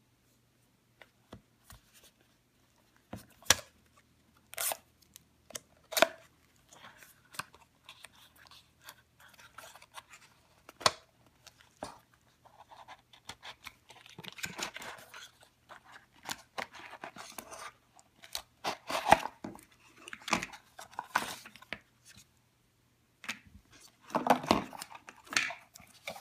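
Unboxing an Apple iPhone Lightning Dock: the cardboard box and its paper insert are handled and opened, giving scattered sharp taps and clicks and irregular bursts of rustling, scraping and tearing card. The busiest stretch comes near the end, as the dock is lifted out.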